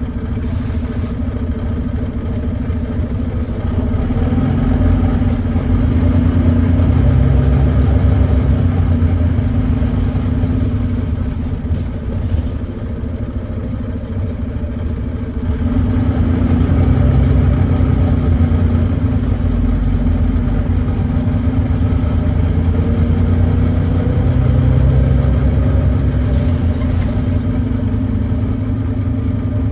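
Volvo D9B 9.3-litre diesel engine of a Volvo B9TL double-decker bus running under load. It swells twice, about a few seconds in and again about halfway, with a lull between, and a faint rising whine shows in the second half. The engine runs with a thrashy note from an exhaust leak.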